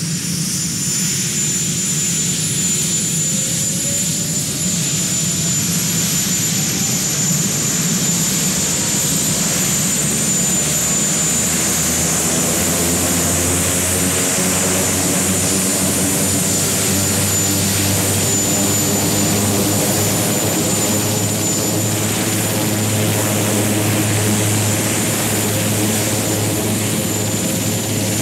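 Marine One, a Sikorsky VH-3 Sea King helicopter, starting up on the ground. The whine of its twin turboshaft engines rises in pitch over the first several seconds as the main and tail rotors spin up, then holds steady, with a low hum that grows stronger after about ten seconds.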